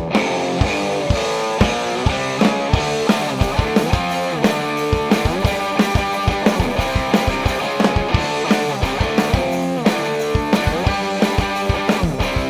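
Electric guitar, a 1998 Dan Armstrong Ampeg, played through a Fuzzrocious Dark Driving low-gain overdrive pedal: a riff of sustained, changing notes over a drum kit with frequent kick drum hits.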